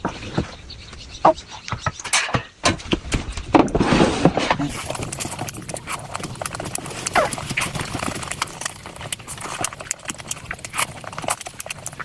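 Close-miked eating sounds: chewing and lip smacking with many irregular wet clicks, busiest and loudest a couple of seconds in.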